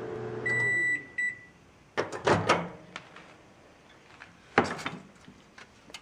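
GE countertop microwave oven humming, then shutting off about half a second in: the hum winds down as a single high beep sounds. A few clicks and clacks follow as the door is unlatched and swung open, and another click near the end as the crinkled aluminium foil is handled.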